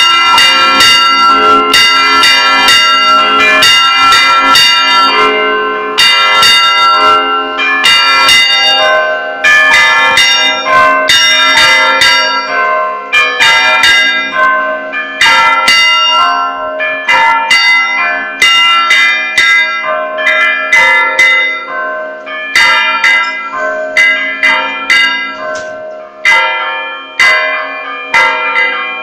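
Church bells rung by hand in a Brazilian repique: rapid, rhythmic strikes, several a second, on bells of different pitches, each ringing on under the next. Loud and close, from right beside the bells in the tower.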